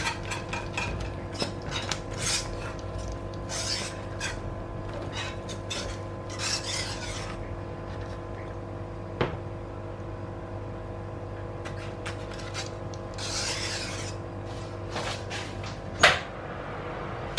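Wire whisk scraping and stirring thick, cooking pastry cream against a stainless steel pot in irregular strokes, with a sharp knock about nine seconds in and a louder one near the end. A steady hum runs underneath.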